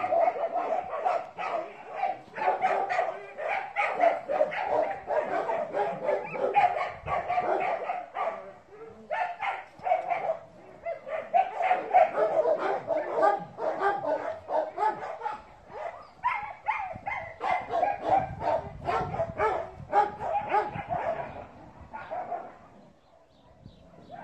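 Dogs barking in a rapid, continuous run of overlapping barks, with brief lulls, dying away near the end.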